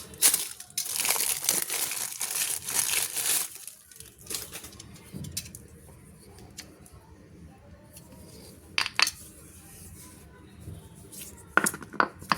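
Packaging being torn open and crinkled by hand for about the first three and a half seconds. Quieter handling follows, with a few sharp clicks or knocks later on.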